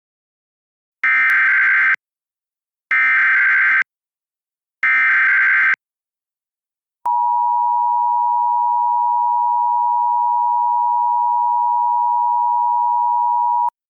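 Emergency Alert System SAME header: three bursts of digital data tones, each about a second long and a second apart, followed by the steady EAS attention tone for about seven seconds, announcing a Required Monthly Test alert.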